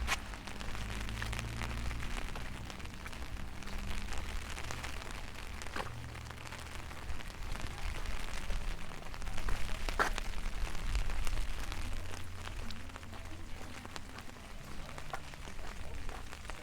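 Steady rain falling, with many small drop ticks and a few sharper single drop hits, over a low rumble.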